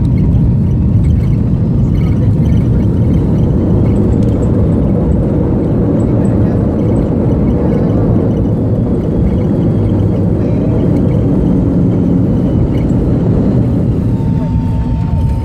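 Cabin noise of a rear-engined jetliner rolling out on the runway after touchdown: a loud, steady rumble from the engines and the wheels on the runway, easing a little near the end. A thin steady high tone comes in near the end.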